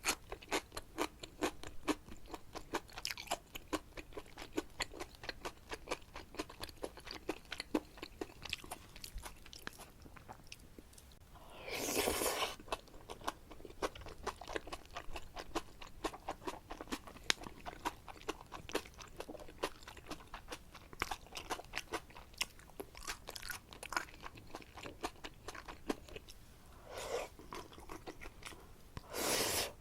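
Close-miked eating of black bean noodles (jajangmyeon): a steady run of small, wet chewing clicks, with a louder, longer slurp about twelve seconds in and two more near the end.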